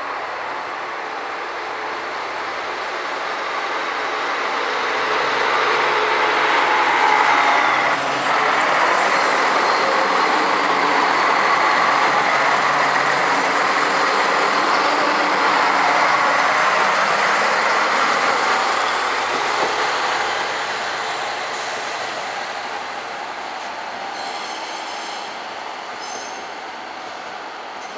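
X 73500 diesel railcar passing close by and pulling away: engine and rail noise build over a few seconds, stay loud through the middle, then fade as the train goes off.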